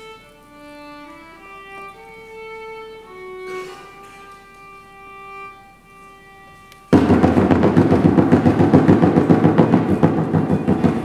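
A quiet, slow solo melody on a bowed string instrument, one held note after another. About seven seconds in, a sudden, much louder dense clattering noise with fast irregular pulses cuts in and carries on.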